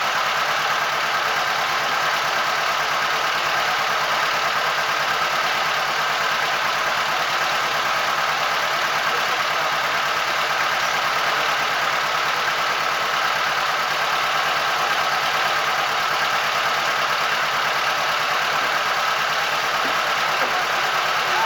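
Boat engine running steadily, a constant drone that does not change in pitch or level.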